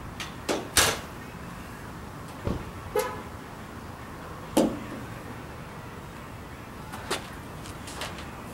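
Scattered clicks and knocks from a measuring tape and a suction-cup holder being handled on a car hood, over a steady low hum. A short pitched toot comes about three seconds in, and a louder knock with a falling tone a little later.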